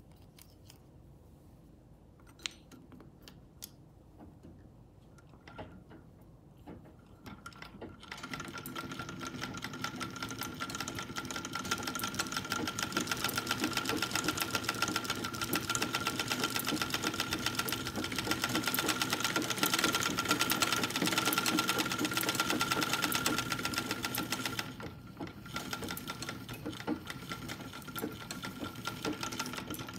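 Vintage Singer sewing machine running, winding thread onto a spool on its bobbin-winding attachment, with a fast rattling whir and a steady whine. It starts about eight seconds in after a few small clicks, runs at speed, then drops to a quieter run near the end.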